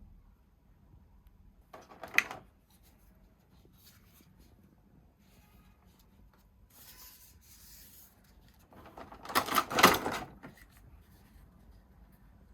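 Box and packaging being handled: a short rustle with a sharp click about two seconds in, a brief scraping hiss around seven seconds, and a louder clatter of rustling and knocks around nine to ten seconds.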